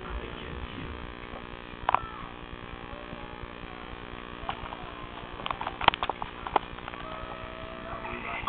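Steady electrical hum with a few sharp clicks, the loudest about two seconds in and a cluster around six seconds in.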